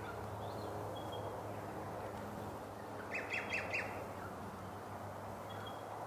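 A bird calling outdoors: one quick run of about five short, sharp notes about three seconds in, with a few faint thin high notes around it.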